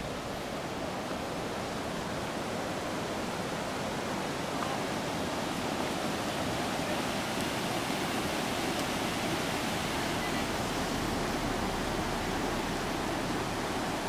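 Mountain stream rushing over rocks and small rapids, a steady watery hiss that grows a little louder over the first few seconds.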